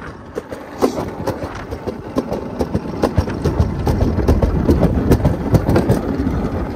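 Bobsled-style alpine coaster sled running down its track: a continuous rattling rumble with many small clicks, growing heavier about halfway through.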